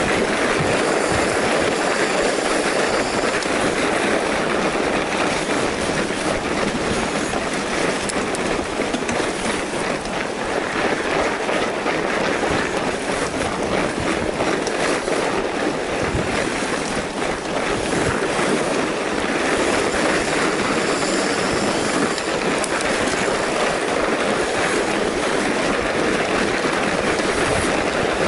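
Steady rattle and rumble of a fat bike riding over packed snow, picked up by a camera mounted on the bike: fat tyres on the snow, with the bike and mount shaking over the bumps in a constant dense clatter.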